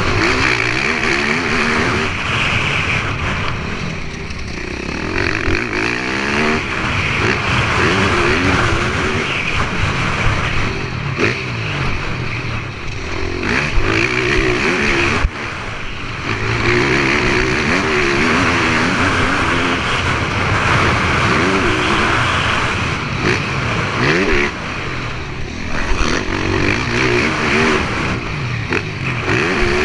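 Motocross bike engine racing over a dirt track, its revs rising and falling over and over through gear changes and throttle changes, with a few short knocks.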